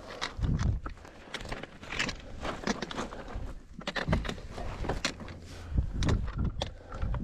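Hiking boots crunching, scraping and knocking on rock in irregular steps, with a few dull low thumps mixed in.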